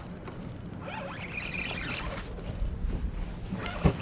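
Spinning reel being cranked, a light mechanical whirring and clicking over a steady low rumble, with one sharp knock near the end.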